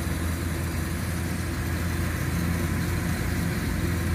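Engine of a tracked rice-hauling tractor running steadily with a low, even hum as it crawls along loaded with about 100 sacks of rice.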